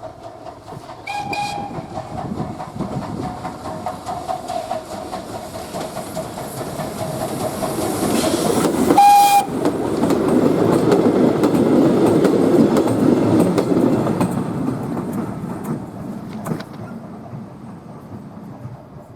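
TKt48-18 steam tank locomotive and its train passing, with wheels clattering over the rail joints. The steam whistle sounds, a short sharp blast about a second in and another about nine seconds in. The train is loudest as it goes by in the middle, then fades away.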